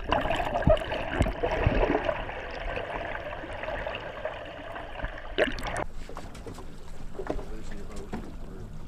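Muffled water rushing and bubbling heard underwater beside a hooked smallmouth bass splashing at the surface, with several dull thumps in the first two seconds. About six seconds in it changes abruptly to open-air wind and water noise around a small boat.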